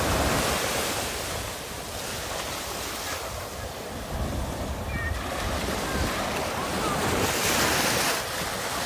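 Ocean surf: small waves breaking and washing up the sand, a steady rushing hiss that swells with each wave and is loudest about seven to eight seconds in.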